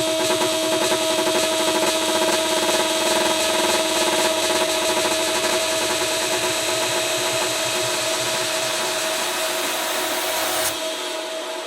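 Electronic minimal techno: a dense, gritty, buzzing synth texture over a held tone with a fast fine pulse, building steadily. About ten and a half seconds in, the high end cuts off abruptly and the rest fades away.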